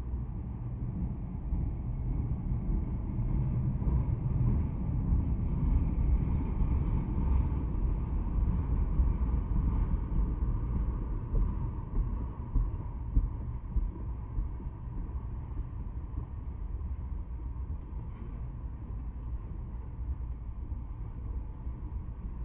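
Tank cars of a long CSX freight train rolling past: the steady rumble of steel wheels on the rails. It swells a little in the middle and eases toward the end.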